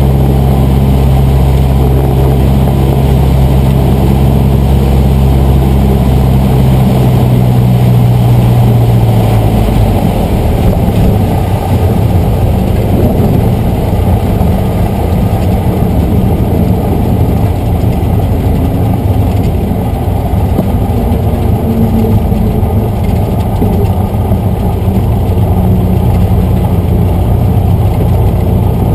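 Cessna 150's Continental O-200 four-cylinder engine and propeller running steadily at part power while the plane rolls down the runway. About ten seconds in the steady engine note falls away to a lower, rougher idle as the throttle comes back.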